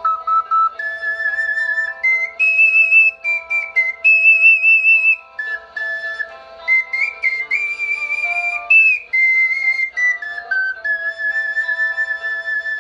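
An ocarina plays a stepwise melody of clear, pure notes over a steady chordal accompaniment. Near the end it settles on one long held note.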